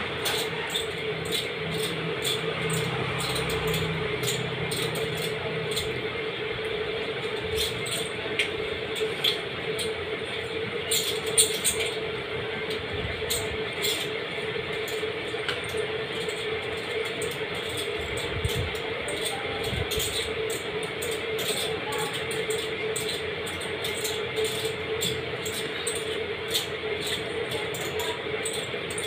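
Eating sounds: a person chewing and handling food, with scattered small clicks and taps, over a steady hum.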